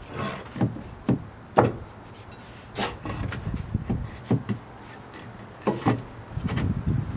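Irregular knocks, bumps and scrapes as a heavy Airco TIG welder is levered and shifted by hand in the back of a vehicle, about seven or eight separate hits spread over the stretch.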